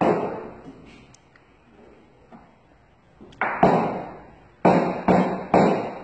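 Milk pitcher knocked down on a wooden counter to settle the frothed milk: sharp knocks that die away quickly, one at the start, two close together about three and a half seconds in, then three evenly spaced near the end.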